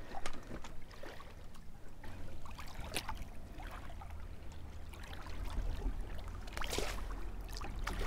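River water lapping and splashing at the bank as a blue catfish is lowered back in by hand, over a low steady rumble, with a few sharp splashes, the loudest about two-thirds of the way through.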